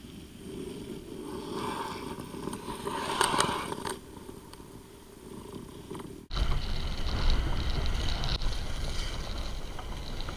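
Ice skate blades gliding and scraping over reservoir ice. The sound swells and then fades in the first half. About six seconds in it cuts to a louder, steady low rumble of blades on the ice, with wind on the microphone, as the skater is carried along by a kitewing.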